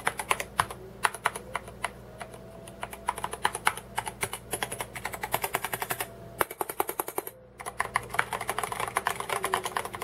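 Typing on an Ajazz AK510 mechanical keyboard with Ajazz's own Cherry MX Brown–style tactile switches: rapid runs of keystroke clicks, pausing briefly about two seconds in and again between six and eight seconds in.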